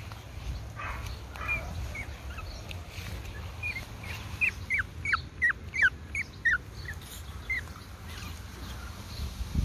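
A young Pomeranian puppy giving a run of short, high squeaks, each dropping in pitch, about two a second, over a low steady rumble.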